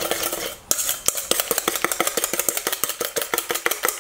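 Wire whisk beating a runny egg and coconut-flour batter in a stainless steel mixing bowl, the wires clicking rapidly against the metal, about six or seven taps a second. The beating breaks off briefly about half a second in, then picks up again.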